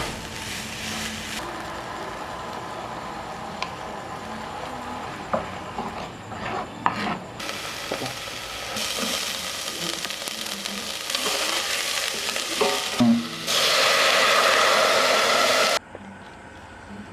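Food frying in a pan: a steady sizzle with scattered clicks of a utensil. It changes level abruptly several times, is loudest for about two seconds near the end, then cuts off suddenly.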